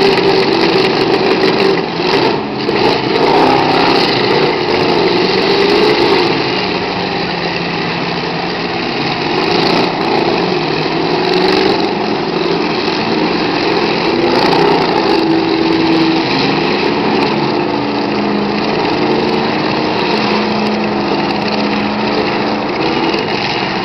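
Engines of several demolition derby cars running and revving at once, a dense mix of engine noise with pitches that rise and fall as drivers push against each other.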